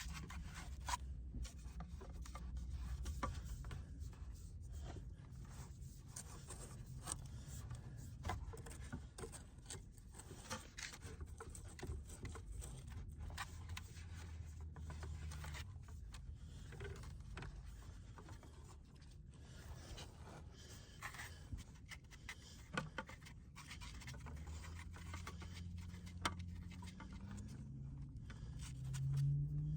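Irregular scraping, rustling and scuffing of a person moving and handling materials in a tight crawl space, with a few sharp clicks.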